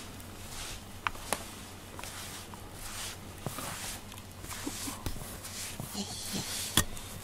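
A rubber glove-type grooming brush stroked through a cat's fur, making repeated soft rustling strokes, with a couple of sharp clicks about a second in and another near the end.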